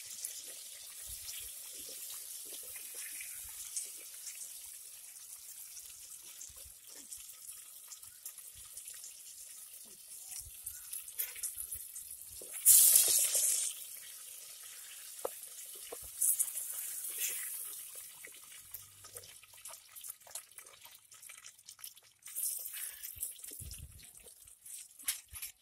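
Pieces of red snapper frying in hot oil in a clay pot: a steady high sizzle, with a sudden louder burst of sizzling about halfway through.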